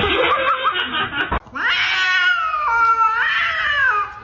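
A domestic cat yowling in one long drawn-out call, starting about a second and a half in, its pitch stepping down and back up; it is followed by the owner asking whether it wants to go out. Before the call there is a short stretch of mixed noise that cuts off abruptly.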